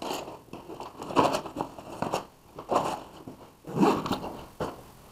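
Zipper on a canvas tool bag being pulled shut in a series of short, irregular strokes, with the fabric rustling as it is handled.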